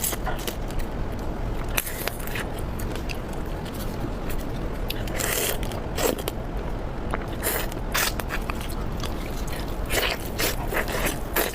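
Spicy crab being eaten close to the microphone: irregular cracks and crunches of shell, scraping and biting, over a steady low hum.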